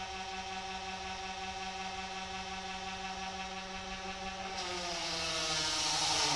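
Small solar-powered twin-head diaphragm sprayer pump running with a steady, slightly pulsing electric hum. About four and a half seconds in, the spray lance opens: the motor's pitch drops as it takes the load, and a loud hiss of water jetting from the nozzle comes in.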